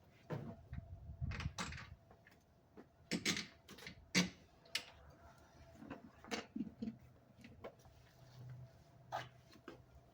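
Scattered light clicks, clinks and knocks of hand tools and bolt hardware being handled and fitted, with a few sharper knocks about three and four seconds in, over a faint steady hum.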